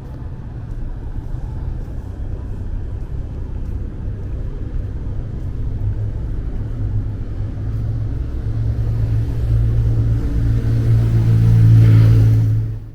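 A road vehicle's engine running with a low hum, growing steadily louder as it draws near, then cut off abruptly near the end.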